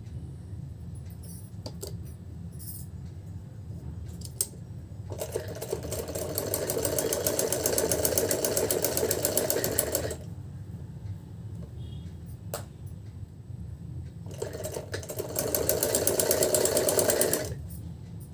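Motorised sewing machine stitching through net fabric and paper buckram in two runs: about five seconds of fast, even needle rattle, then a shorter run of about three seconds. Between the runs there is a steady low hum and a few single clicks.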